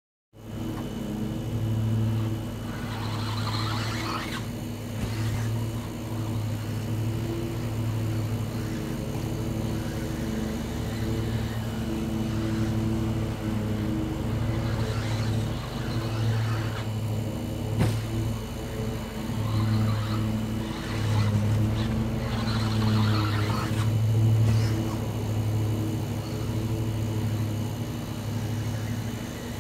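RC stock buggy running laps on a grass and dirt track, its motor and tyres heard in brief passes every few seconds, over a steady low hum.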